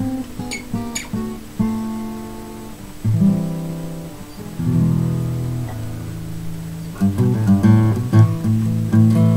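Epiphone Masterbuilt DR500 mahogany cutaway acoustic guitar played unplugged: chords struck and left to ring out, then busier, quicker picking from about seven seconds in.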